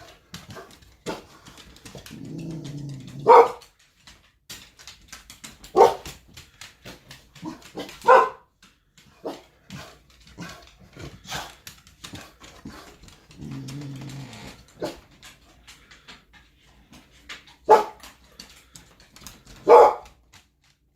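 A dog growling low, then giving sharp single barks, twice over: a growl followed by a bark, two more barks a few seconds apart, then another growl and two more barks near the end.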